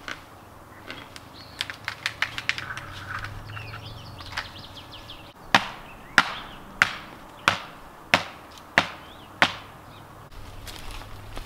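Camp axe chopping dead wood: seven sharp, evenly paced strikes, about one and a half a second, starting about halfway through, after a few lighter knocks.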